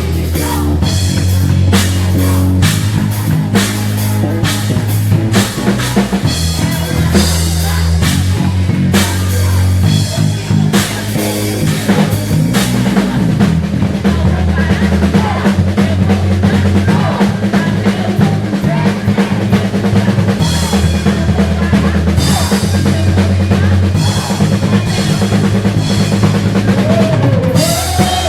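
Drum kit played along to the song's recording: kick, snare and cymbal hits over steady held bass notes. The cymbal hits are densest in the first half and thinner in the middle.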